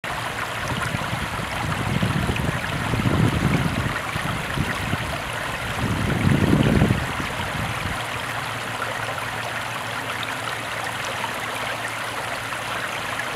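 Water rushing and foaming over and around rocks: a steady rush, with two louder, deeper swells about two and six seconds in.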